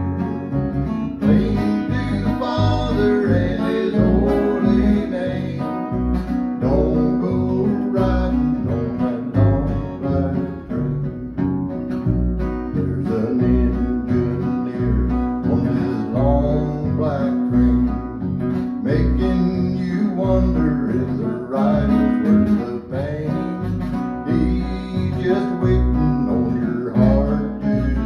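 A man singing a country gospel song to a strummed acoustic guitar, with a plucked upright bass keeping a steady beat underneath.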